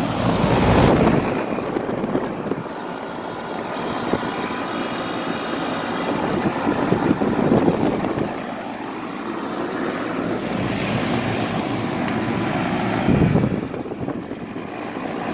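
Carrier 38CKC central air-conditioner condensing unit running, a steady fan and compressor whir. The owner suspects its coils are dirty and plugged, since it blows air only out the sides. Louder low rumbles come about a second in and again near the end.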